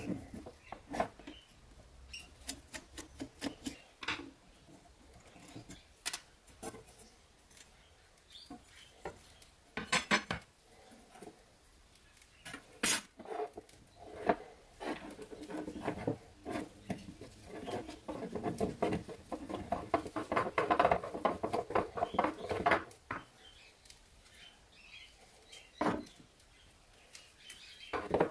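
Metal parts of an old file holder clinking, knocking and scraping as they are taken apart by hand: scattered sharp clicks, with a longer stretch of denser rattling and scraping in the middle.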